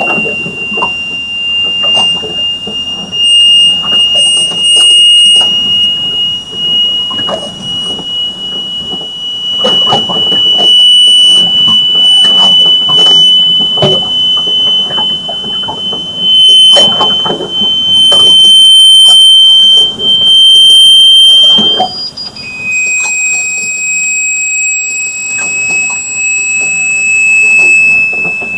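A loud, steady, piercing high-pitched tone of unknown origin. It creeps slowly upward in pitch and then drops to a slightly lower pitch near the end, with scattered knocks and clatter underneath.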